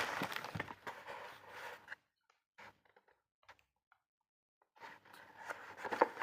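Unboxing handling noise: packaging rustling and crinkling for about two seconds, then a few faint clicks, then more rustling and handling from about five seconds in with one sharp click near the end.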